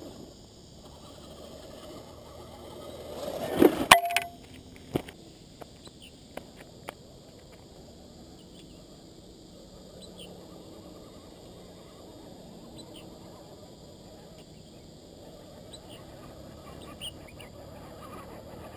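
Faint outdoor background with scattered light ticks. About four seconds in there is a short burst of loud knocks and scraping from the action camera being handled and moved, followed by a few single clicks.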